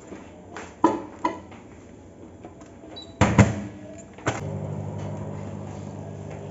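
Microwave oven being started to cook a mug cake: a few light keypad clicks, a short high beep about three seconds in followed by a couple of loud knocks, then the oven starts about four seconds in and runs with a steady low hum.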